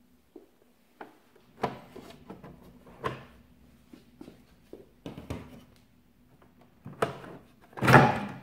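Plastic housing panels of a De'Longhi ESAM coffee machine being unclipped and pulled off by hand: a string of separate clicks and knocks, the loudest near the end as the back panel comes away.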